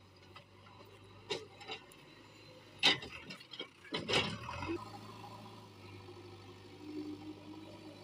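Heavy machinery at work: a steady low engine hum under a run of sharp knocks and a short rushing pour in the middle, like loose earth being dumped.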